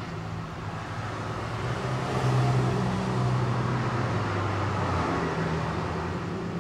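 A steady low motor hum with a rushing noise behind it, growing louder about two seconds in and easing off near the end.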